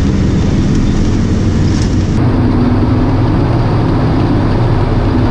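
Engine of a snow vehicle running steadily under way, heard from inside its cab as a loud, even drone.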